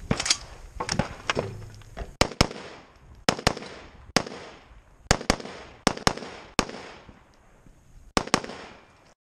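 Semi-automatic rifle fire: about fifteen shots over nine seconds, many in quick pairs a quarter second apart, each with a short echo. The sound cuts off abruptly near the end.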